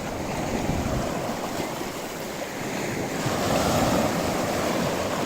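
Sea waves washing, with wind rumbling on the microphone; the wash swells about three seconds in.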